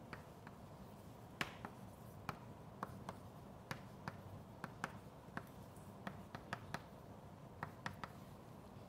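Chalk writing on a blackboard: a string of faint, sharp clicks, about two or three a second, as the chalk strikes the board with each stroke.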